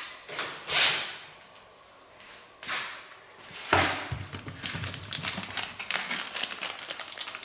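Workshop handling noises: a few short swishes, a sharp knock about four seconds in, then a rapid crinkling of small packaging being handled.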